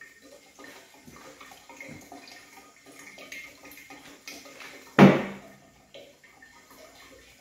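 Water trickling and gurgling through a steam condenser on an electric brew kettle, with small irregular crackles. A single sharp knock with a brief ringing tail about five seconds in is the loudest sound.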